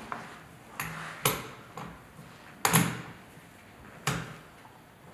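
Anti-friction ring being unscrewed by hand from the core drill motor's threaded spindle: a series of about six sharp clicks and light knocks, the loudest about three seconds in.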